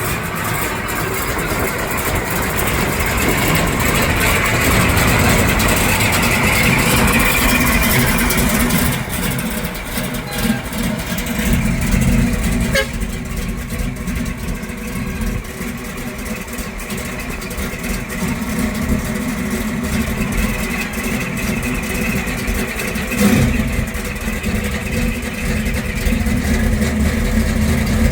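1972 Chevrolet El Camino SS V8 engine running, a steady low rumble. A brighter layer of background noise drops away after a sharp click about thirteen seconds in.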